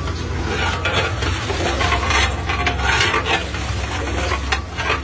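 A long metal ladle stirring through thick, simmering mutton nihari in a large aluminium degh, with repeated scraping strokes. A steady low hum runs underneath.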